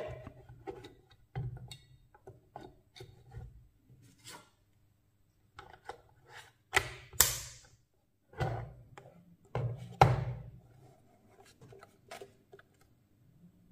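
Irregular clicks, taps and short scrapes of small tools and parts being handled on a workbench, with a few louder scrapes around the middle, over a faint steady hum.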